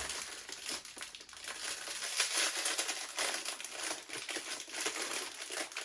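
Plastic packaging crinkling and crackling in the hands as a blind-box mini figure is unwrapped: a run of irregular small crackles with no steady rhythm.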